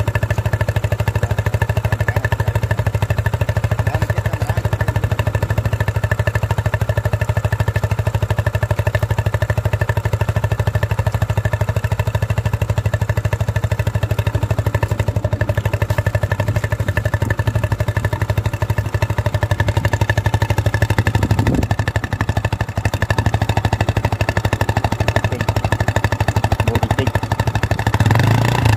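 Small motorcycle engine idling steadily, heard close at its exhaust muffler.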